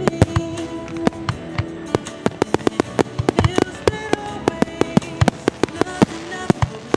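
Aerial fireworks shells bursting in quick succession, dozens of sharp bangs that come thicker from about two seconds in, over a slow pop ballad playing.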